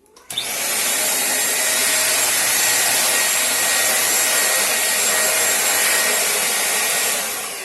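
Britânia 1000 W upright vacuum cleaner switched on, its motor starting suddenly and running steadily with a rushing hiss and a faint whine, then starting to wind down near the end as it is switched off.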